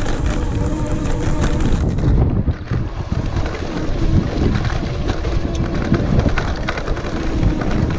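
Wind buffeting the microphone while an e-bike rides up a rough path under throttle, with a faint steady whine from its 250 W rear hub motor under the rumble.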